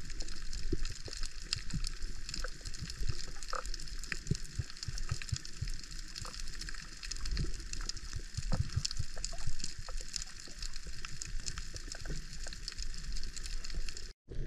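Underwater ambience during a spearfishing dive: a steady hiss with many scattered small clicks and crackles, broken by a brief dropout just before the end.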